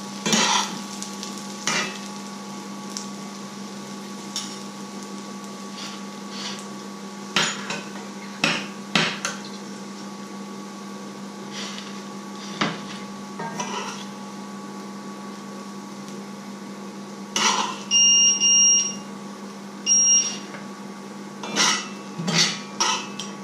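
Metal spoon and spatula clinking and scraping against a frying pan and a plate as fried onions are stirred and served, in scattered knocks that come thickest near the end, over a steady hum. A few short high electronic beeps sound about two thirds of the way in.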